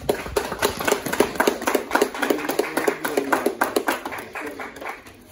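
A small group of people applauding, many quick, uneven hand claps that thin out near the end.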